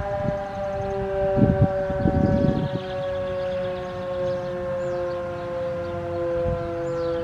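Three-phase Sterling Model M outdoor warning siren sounding one steady tone that slowly slides down in pitch as the rotor winds down after its alert signal. A few low thumps and rumbles come through about one and a half to three seconds in.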